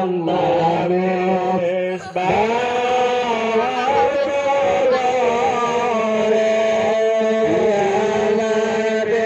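A male voice chanting a devotional song in long, held notes that slide between pitches, with a short break between phrases about two seconds in.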